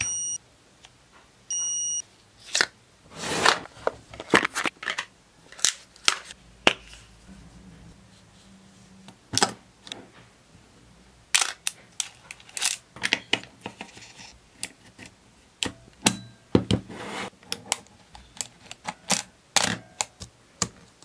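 Hands loading a roll of 35 mm film into an Olympus OM10 film camera: a scatter of clicks, snaps and rustles from the film box, film and camera mechanism. Two short electronic beeps sound in the first two seconds.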